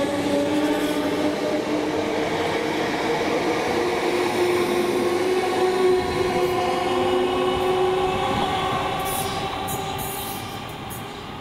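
Class 345 electric multiple unit passing close by, its traction motors whining in several steady tones that rise slightly in pitch over the rumble of the wheels on the rails. The sound fades about ten seconds in.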